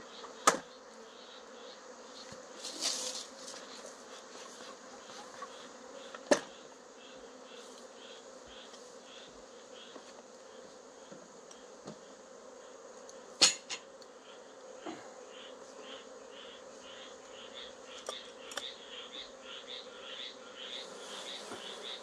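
Honeybees buzzing steadily in a dense cloud around an opened hive as the frames are brushed off. Three sharp knocks come about half a second, six seconds and thirteen seconds in.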